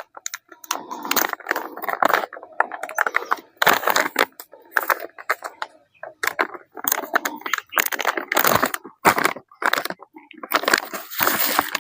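A packet of alfalfa seed being cut open and handled: its packaging crackles and crinkles in irregular bursts.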